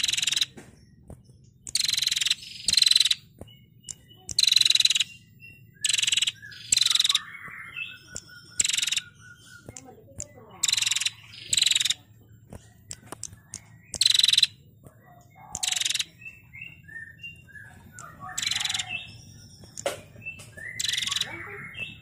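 Female prenjak giving its rapid, buzzy 'ngetir' calls: about a dozen short harsh bursts a second or two apart, with softer chirps between them.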